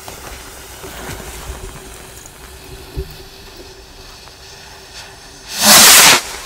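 A small firework rocket launching: a loud hiss lasting under a second near the end. A single short knock sounds about three seconds in.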